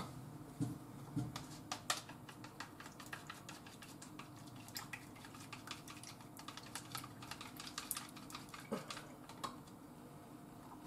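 Chopsticks beating a raw egg in a small ceramic bowl: rapid, irregular clicking of the sticks against the bowl, stopping about a second before the end.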